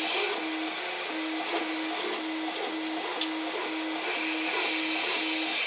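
Tormach CNC mill running its spindle while a spot drill works through hole after hole in a metal plate, a steady machine hiss with a hum that pulses about twice a second as the machine moves from hole to hole.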